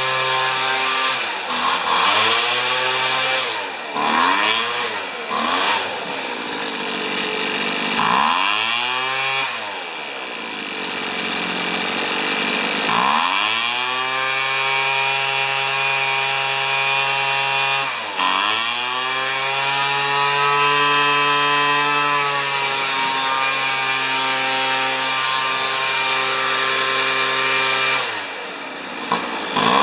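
Weed Eater leaf blower's small two-stroke engine running under a tune-up, its speed dropped and opened back up again and again, with stretches held steady at high speed in between.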